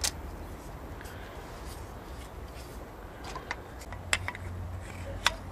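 Light clicks and taps of metal and plastic parts being handled: a clutch friction disc set against its pressure plate and a plastic clutch alignment tool pushed into the disc's hub. There are a few separate sharp clicks, the loudest at the very start and just after five seconds in, over a low steady hum.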